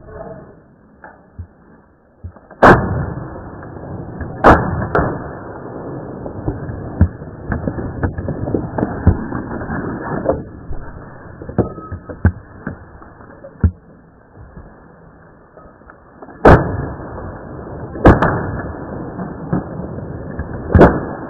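Five gunshots, each a sharp crack: two a few seconds in, about two seconds apart, then a long gap and three more near the end, a couple of seconds apart, with a rough crackling noise between them.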